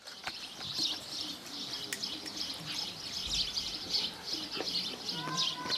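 Many small birds chirping and twittering, with the low cooing of a dove underneath. A few held steady tones come in near the end.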